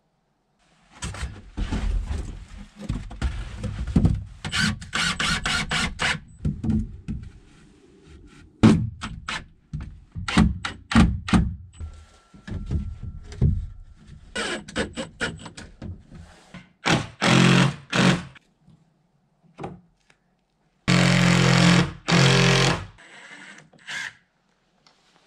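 Knocks, thumps and clatter of rough-cut boards as a wooden shed door is fitted. Two short runs of a power drill come in the last third.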